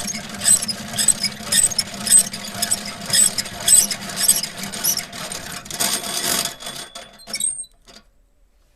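Hand-cranked honey extractor spinning comb frames, its gears squeaking and rattling in a steady rhythm about twice a second, winding down and stopping about seven seconds in.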